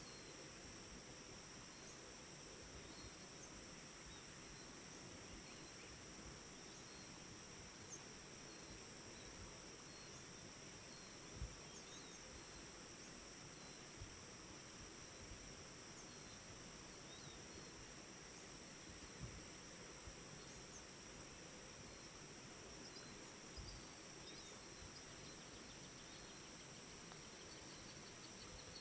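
Faint, steady chorus of insects trilling in a continuous high-pitched drone, with a few soft low thumps.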